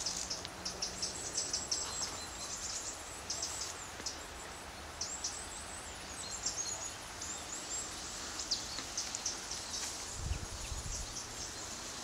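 Woodland ambience: a steady outdoor hiss with many short, high-pitched chirps throughout, and a brief low rumble about ten seconds in.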